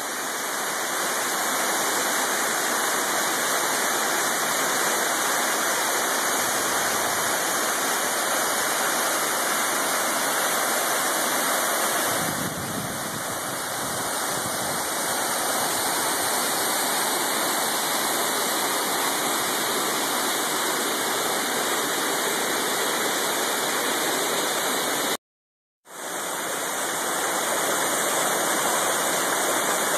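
Steady rushing of a mountain waterfall's falling water. The roar shifts slightly about twelve seconds in, and it cuts out for half a second about 25 seconds in before another waterfall's rush takes over.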